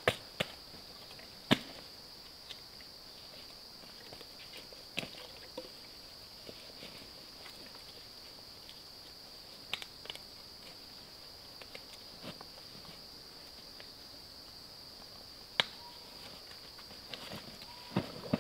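Insects keep up a steady, high-pitched drone, with a dozen or so short, sharp clicks and knocks scattered through it as gear is handled, the loudest about a second and a half in and near the end.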